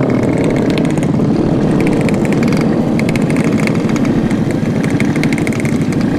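Two-stroke motorcycle engine running steadily while riding along at an even speed.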